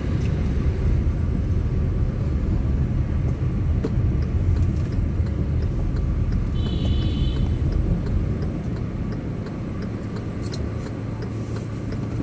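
Steady, loud rumble of street traffic and engines. A brief high-pitched tone sounds about seven seconds in.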